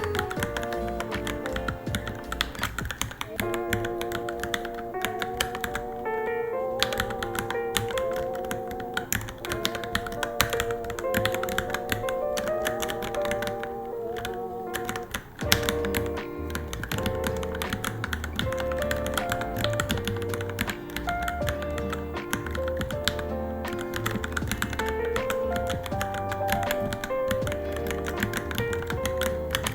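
Steady typing on a Varmilo Minilo mechanical keyboard, a dense run of key clacks, under background music with a sustained, wavering melody.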